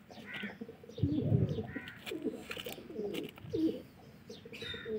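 Pigeons cooing: a run of low, wavering coos, with a few short high chirps mixed in.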